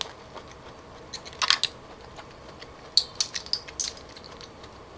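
Sharp clicks of cockle shells knocking together as they are picked from the plate: a short cluster about one and a half seconds in, then a quicker run of clicks a second later.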